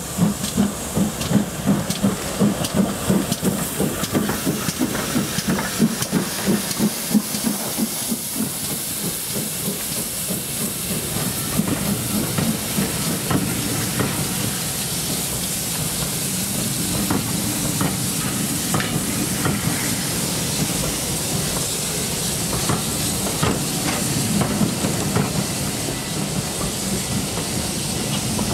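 Steam tank locomotive pulling out with its train, the exhaust chuffing at about two beats a second, then a steady hiss and rumble as the coaches roll past, with scattered clicks of wheels over rail joints.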